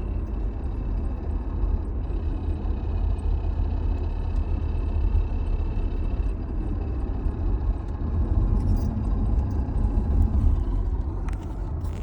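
Early 30-series Toyota Alphard running, with a steady low rumble and a thin, steady high whine, which the owner presents as an abnormal noise from its CVT. A few light clicks near the end.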